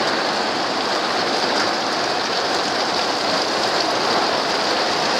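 Heavy downpour with hail setting in: a steady, dense rush of rain with faint scattered ticks of impacts.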